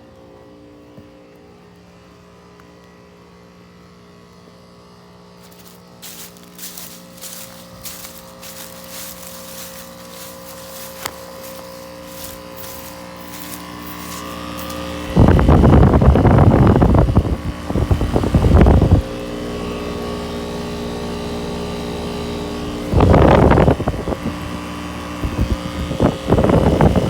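1996 Heil 5000 heat pump running in heat mode: a steady mechanical hum with several constant tones. Light irregular crackling comes in about six seconds in. A loud, rough rushing noise covers it for about four seconds midway and again briefly near the end.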